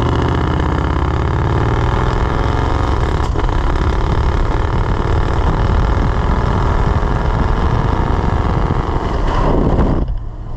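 1983 GMC K2500 pickup on the road, its engine pitch rising over the first few seconds as it accelerates, then running on under heavy wind and tyre noise. The sound changes abruptly about ten seconds in.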